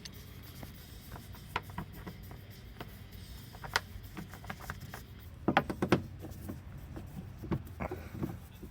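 Scattered small clicks and taps of Torx screws being fitted into the plastic housing of an electric mulching mower, with a quick cluster of clicks about five and a half seconds in.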